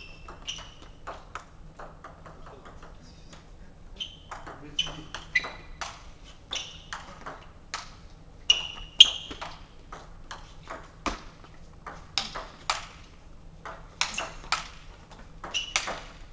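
Table tennis ball hit back and forth in a rally: sharp clicks of the ball on the bats and the table, in quick runs with short pauses between points.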